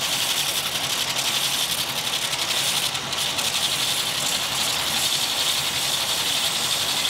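Belt grinder running steadily, its abrasive belt over the contact wheel sanding a pallet-wood knife handle held against it, with a constant high hiss.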